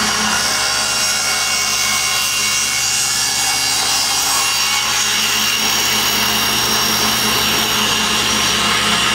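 Table saw ripping plywood, the blade cutting steadily through the board over the steady drone of a dust collector.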